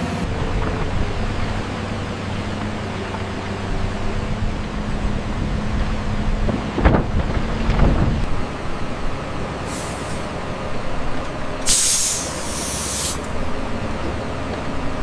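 Excavator's diesel engine running steadily, with a couple of knocks about seven to eight seconds in. A short hiss of released air comes near ten seconds and a stronger one, lasting about a second, near twelve seconds.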